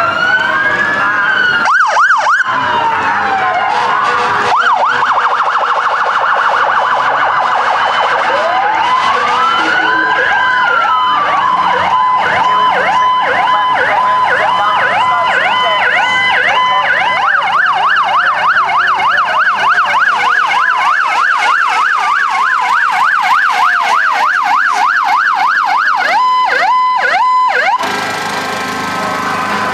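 Several emergency-vehicle electronic sirens sounding at once, overlapping slow rising-and-falling wails with steady tones, switching to a fast yelp a little past halfway. The sirens stop abruptly near the end.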